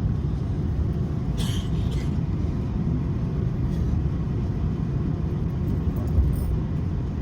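Steady low rumble of jet airliner cabin noise in flight, engines and airflow, with a short hiss about a second and a half in.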